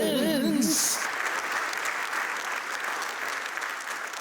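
A sung or musical phrase ends less than a second in, followed by steady applause from a crowd.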